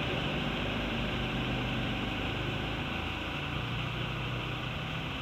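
Steady low mechanical hum over a constant hiss, its pitch shifting slightly about three and a half seconds in.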